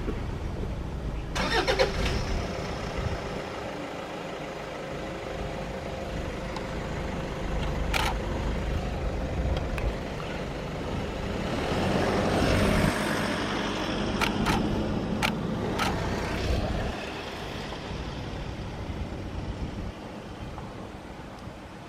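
A vehicle engine running with a steady low rumble that swells about halfway through, with several sharp clicks scattered over it.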